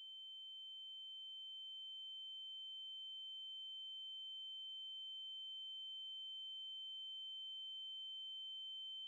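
A steady, high-pitched electronic sine tone, a single held pitch that slowly swells louder.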